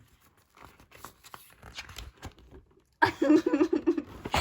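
Faint rustling and light taps of paper and card being handled. About three seconds in, a woman's voice comes in loudly.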